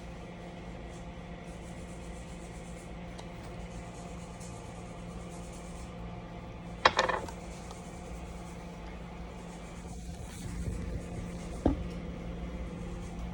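Steady hum of a nail salon at work, broken by a sharp tap about seven seconds in and a smaller one near twelve seconds.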